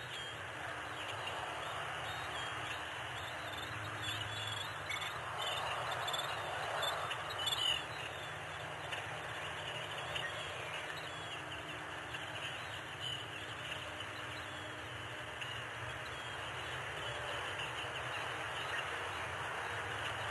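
Steady outdoor background noise with faint, short, high chirping calls scattered through it.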